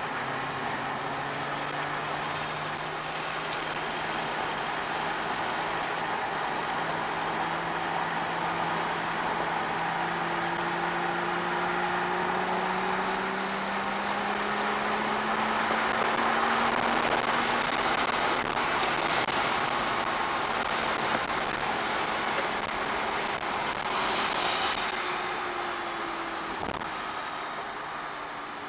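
2007 Porsche Cayman S's 3.4-litre flat-six heard from inside the cabin at track speed, pulling hard with its pitch climbing slowly for most of the stretch, then falling back near the end as the throttle eases. Wind and tyre noise run underneath.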